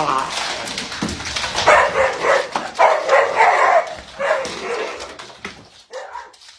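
A dog vocalising in a string of drawn-out calls that bend in pitch, fading towards the end.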